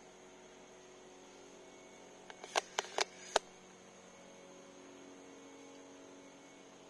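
A steady low electrical hum, with a quick run of five or six sharp clicks a little over two seconds in.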